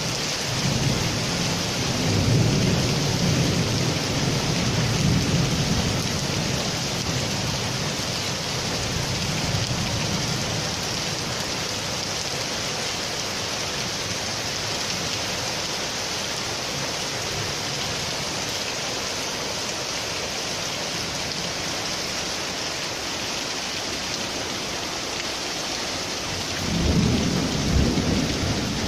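Heavy rain pouring steadily onto paving and foliage, a dense even hiss. Thunder rumbles low under it through the first several seconds and again near the end.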